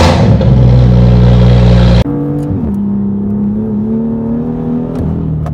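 BMW M2 F87 engine heard in two clips cut together. First it runs loud at a steady high pitch for about two seconds. Then, with an abrupt cut, it is quieter, its pitch falling, holding and rising again as the revs change.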